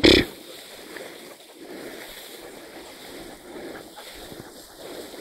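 A brief, sharp, loud noise right at the start, then steady wind noise on the microphone with rustling while walking through a dry field.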